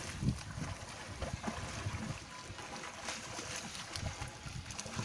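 Wind noise on the microphone with faint, irregular splashing from a swimmer's arm strokes in open water.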